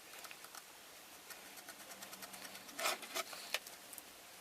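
Faint small clicks and scrapes of a tiny precision screwdriver working the two little screws out of an iPhone 6, with a few sharper ticks about three seconds in.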